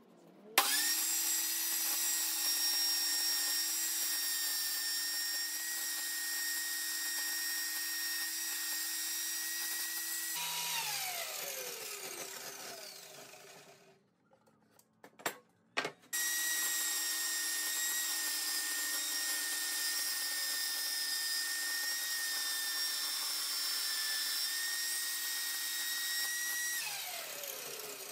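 Benchtop table saw run twice, each time starting with a steady high whine while pine panels are fed across it, then winding down with a falling whine after it is switched off. Two sharp clicks come between the runs.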